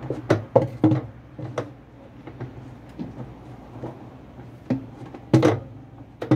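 Hollow plastic knocks and clunks from a top-loading washer's wash basket and centre hub being rocked and handled: a quick run of knocks in the first second or so, scattered single knocks, and a louder cluster about five seconds in.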